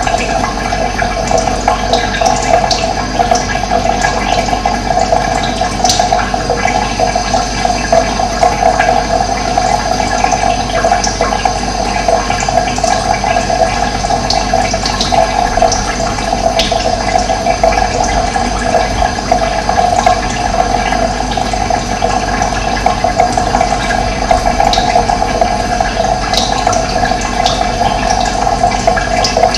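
Running water flowing steadily, an even, unbroken rush, with a few brief high chirps from birds scattered through it.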